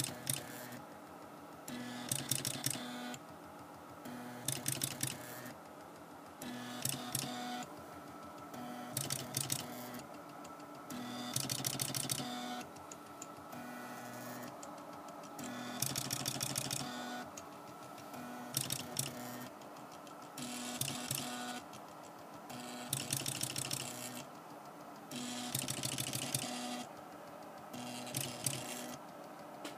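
Small stepper motors from DVD drives in a homemade pen printer, buzzing and whirring in repeated bursts about a second long with short pauses between, their pitched hum changing in steps as the pen carriage and paper roller move to draw characters.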